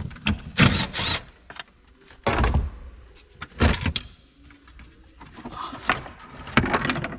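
Hard plastic battery cover and tools being handled in a car's spare-wheel well: several separate clunks and rattles with short quiet gaps between them.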